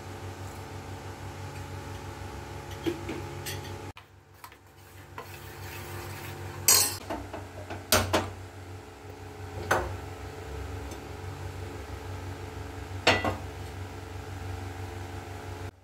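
Steel kitchenware clinking: a spoon on a steel bowl, then about five sharp metallic clicks and clanks at a gas stove as the burner is lit and a flat iron tawa is handled, over a steady low hum.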